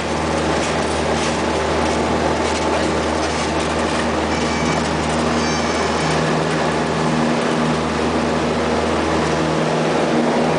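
Cessna 172's piston engine and propeller running at takeoff power, heard from inside the cabin as a loud, steady drone while the plane rolls along the runway.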